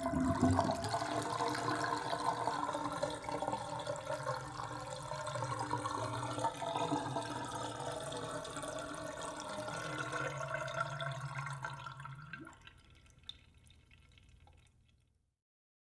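Bathtub draining: water gurgling and swirling down the drain, tailing off about twelve seconds in to faint dribbling and a single drip before the sound stops.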